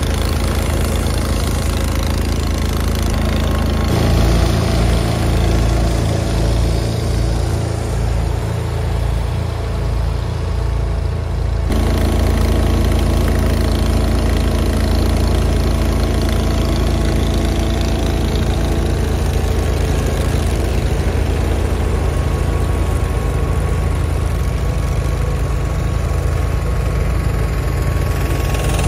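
Garden tractor engines running steadily as the tractors pull plows through the soil. The sound changes abruptly about 4 seconds in and again about 12 seconds in.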